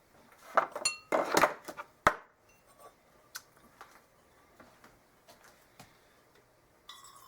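Kitchen pots and utensils clattering: a quick cluster of knocks and clinks with a brief metallic ring about a second in, a sharp click around two seconds, then a few light taps. Near the end, water starts running.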